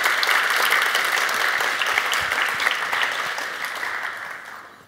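Audience applauding, many hands clapping together, then dying away near the end.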